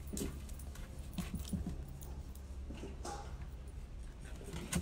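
Faint sounds of a dog moving about, with scattered small clicks and brief blips over a steady low rumble.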